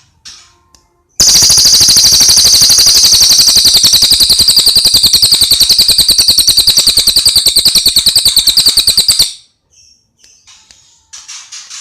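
Cililin bird singing a long, loud, high-pitched rattling trill of very rapid repeated notes, starting about a second in and stopping abruptly about eight seconds later; fainter short chirps come before and after it.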